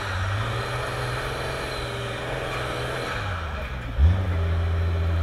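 Engine of a Toyota 60 Series Landcruiser winch truck running under load at steady high revs as it climbs. The note eases off about three seconds in and comes back on loudly and suddenly about four seconds in, then holds steady.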